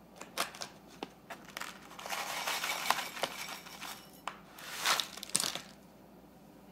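A foil snack pouch crinkling as dried whole crickets are poured out of it onto a plate, the dry insects pattering and clicking as they land. The rustling and clicking stop about five and a half seconds in.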